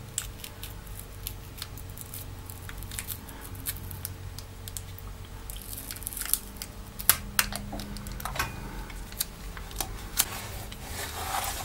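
Black adhesive tape being peeled slowly off a circuit board: faint crackling with scattered small clicks, a few sharper ticks in the second half.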